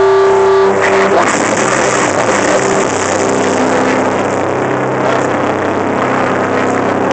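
Live rock band on an outdoor stage, heard loud and distorted through a handheld camera's microphone. A held, ringing chord stops about a second in, leaving a dense, noisy wash of stage and crowd noise over a steady amplifier hum.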